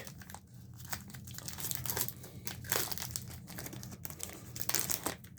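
Plastic wrapper of a hockey trading card pack crinkling and being torn open by hand, in irregular crackles, loudest a little under halfway and again near the end.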